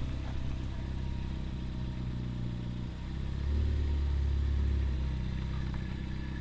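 Ford Focus ST's turbocharged 2.0-litre four-cylinder engine running at low speed through its aftermarket exhaust as the car is manoeuvred, with the engine note swelling briefly about three and a half seconds in before settling back.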